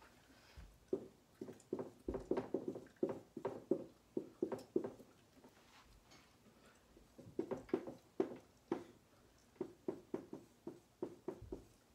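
Handwriting: faint, irregular short strokes of a pen writing, with a pause of about a second and a half around the middle.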